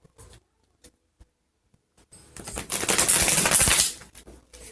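Tarot cards being shuffled: a few faint clicks, then about two seconds in a loud rapid rattle of cards riffling together for nearly two seconds.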